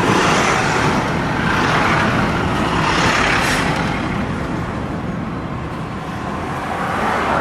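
Steady road and engine noise of a moving car, swelling a few times.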